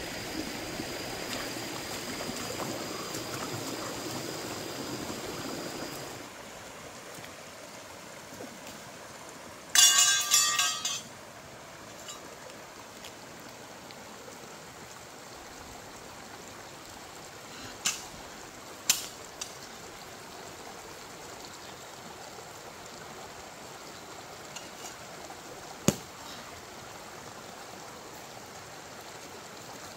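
A shallow rocky stream flowing steadily, louder for the first six seconds with a thin steady high tone, then softer. About ten seconds in, one loud pitched call lasts about a second, and a few sharp knocks follow later.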